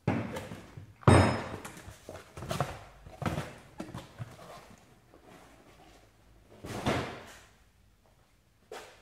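A new brake disc handled out of its cardboard box and set down on the garage floor, with a heavy thud about a second in, then a few lighter knocks and rustles as the cardboard box is moved away.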